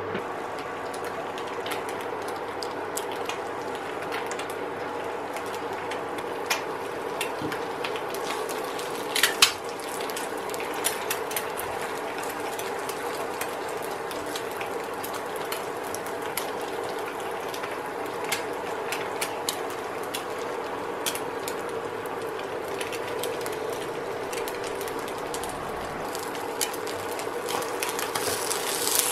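Egg frying in oil in a nonstick aluminium pan on an induction hob: a steady sizzle with scattered sharp pops and crackles of spitting oil, over a steady hum from the induction cooker. A louder cluster of clicks comes about nine seconds in, and the sizzle grows a little louder near the end.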